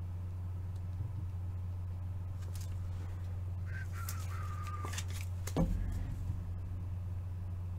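Quiet handling of trading cards and packs over a steady low hum, with a brief squeak about four seconds in and a knock about a second later.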